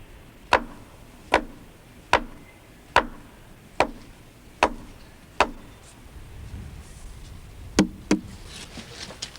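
Steady, evenly spaced blows of a hand tool striking something solid, about one every 0.8 seconds: seven in a row, then after a pause two more close together near the end.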